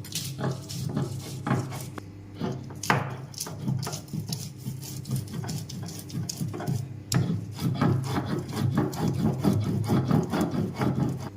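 Ginger and garlic being ground into paste on a sil, the flat Bengali grinding stone: the hand-held stone (puto) is rubbed back and forth over the slab in repeated scraping strokes, which come faster in the last few seconds.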